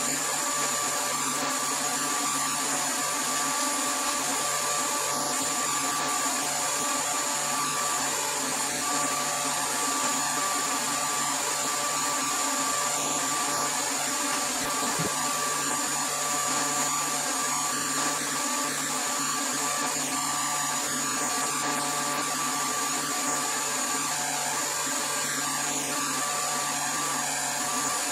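Vacuum pump running steadily with a constant hum and a fixed high whine. It is holding vacuum on a bagged carbon fiber and fiberglass layup while the epoxy resin infuses.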